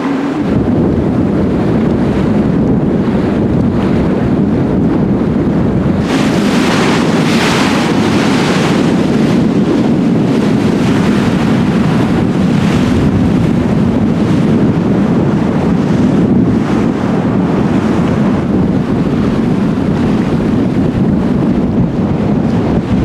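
Wind buffeting the microphone over the rush of churned water along the steamship's hull and wake. A louder hissing surge comes about six seconds in and eases off a few seconds later.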